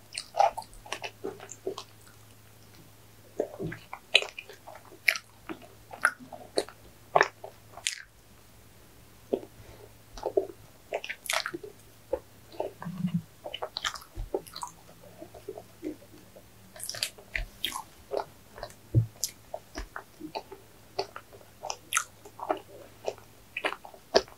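Close-miked eating of an ice cream cake topped with chocolate balls: irregular chewing and crunching with small wet smacks and crackles, over a faint steady low hum.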